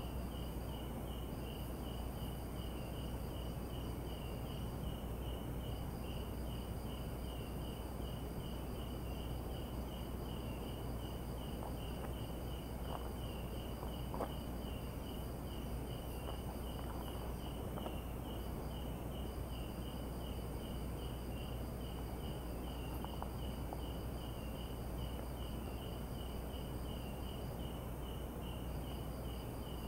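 Night insects, crickets among them: one chirping steadily about three times a second, another trilling in stretches that break off and start again, over a constant high whine.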